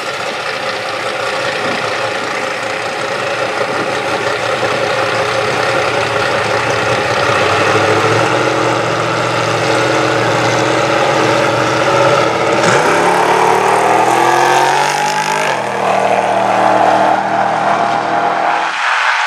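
Compact pickup drag truck's engine running at the starting line, then launching about two-thirds of the way in. The engine note climbs steeply, drops at a gear shift about three seconds later and climbs again as the truck accelerates down the strip.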